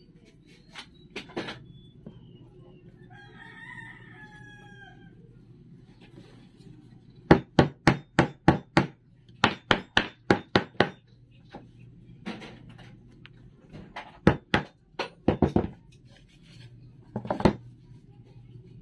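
Hammering in quick runs of sharp blows, about five a second, with a few single strikes between the runs. A rooster crows once about three seconds in, quieter than the blows.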